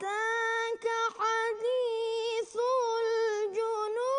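A solo reciter chanting Quran recitation in the drawn-out melodic mujawwad style: one high, sustained vocal line with ornamented turns in pitch, broken by a few brief pauses.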